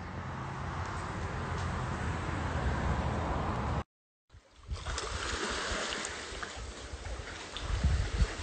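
Steady outdoor background noise with a low hum, cut to silence for under a second about four seconds in, then a second stretch of noise with low rumbles building near the end.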